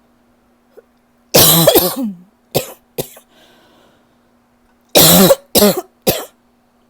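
A person coughing in two fits of about three coughs each, the first starting about a second in and the second near the end, with a faint breath in between. It is the lingering cough that the person cannot shake.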